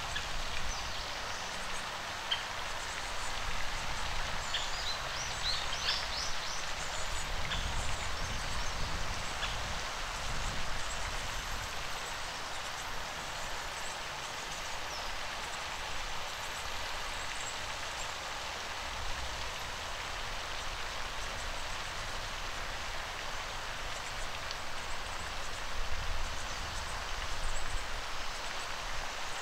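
Steady light rain falling on a pond and its bankside vegetation, an even hiss throughout, with a few faint high chirps about five to eight seconds in.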